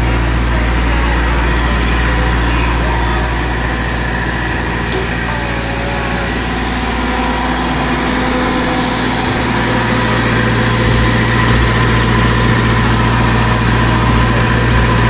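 Diesel engine of a MOSA welding generator set running steadily at constant speed, getting a little louder about two-thirds of the way through.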